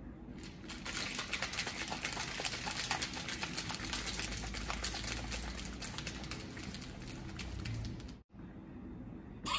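Plastic cocktail shaker being shaken hard by hand, its contents rattling rapidly against the walls in a fast, even clatter. It starts about half a second in and stops abruptly near the end.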